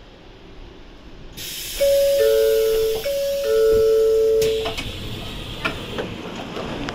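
Tokaido Shinkansen N700A-series door opening at a station stop: a hiss of air starts about a second and a half in, and a two-note high-low door chime sounds twice. Scattered clicks and platform noise follow once the door stands open.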